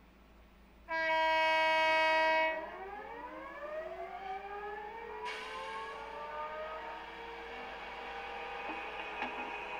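Accurascale Class 92 model locomotive's factory-fitted DCC sound, played through the model's speaker: a loud horn blast about a second in, lasting about a second and a half. It is followed by the electric traction equipment's whine, which rises in pitch in several glides and settles into a steady whine as the loco powers up to move off.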